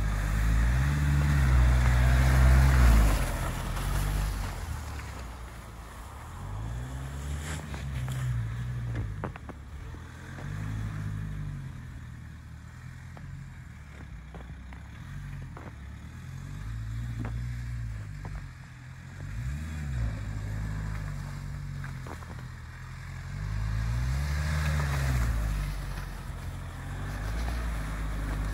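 Nissan X-Trail T32 SUV engine driving through snow, revving up and easing off over and over, about every three seconds. It is loudest in the first few seconds, with a rushing noise over the engine there.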